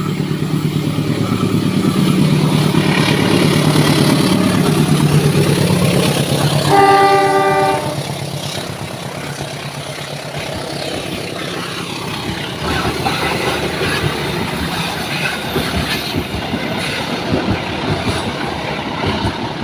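Diesel-electric locomotive passing with its engine running, then sounding its horn once for about a second, followed by the clickety-clack of the carriages' wheels over the rail joints.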